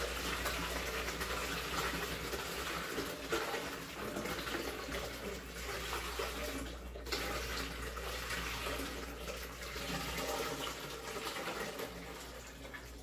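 Berry-and-sugar mash pouring in a steady stream from an aluminium stockpot through a plastic funnel into a glass jug, easing off near the end.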